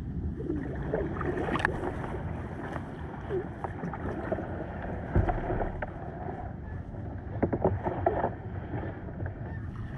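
Kayak being paddled on a river: steady splashing and water noise from the paddle strokes, with a few sharp knocks, one about five seconds in and a quick cluster near eight seconds.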